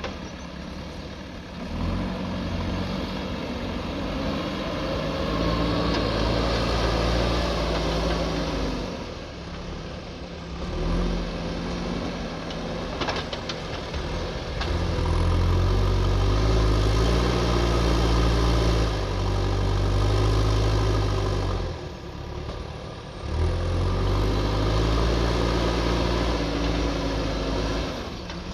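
JCB backhoe loader's diesel engine working, its revs rising under load and dropping back several times, with a few faint knocks about halfway through.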